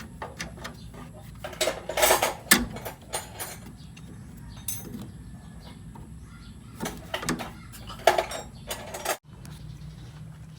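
Scattered metallic clinks and knocks of hand tools and engine parts being handled, with clusters of strikes about two seconds in and again around seven to eight seconds, over a low steady hum.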